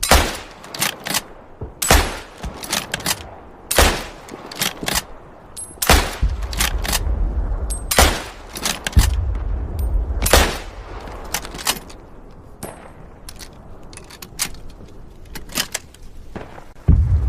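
Carcano bolt-action rifle firing: loud shots roughly every two seconds through the first ten seconds, some trailing a low boom, with quieter clicks and clacks between and after them.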